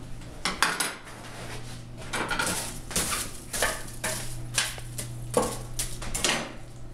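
Steel forge tools (tongs and pokers) clinking and clattering against each other and the forge in a quick, irregular string of metallic clanks, over a steady low hum.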